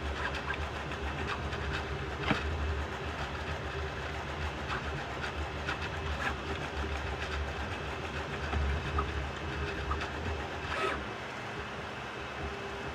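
3D printer running a print: a steady hum of its motors and fans, with scattered light clicks and ticks as the print head moves.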